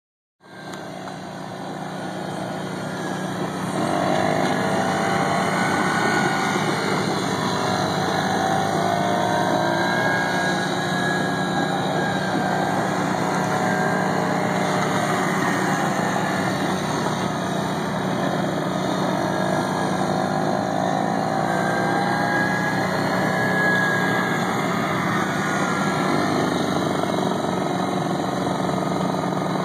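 Kazuma Meerkat 50cc kids' quad engine running as it is ridden around, its pitch slowly rising and falling with the throttle over a steady low hum. It grows louder over the first few seconds.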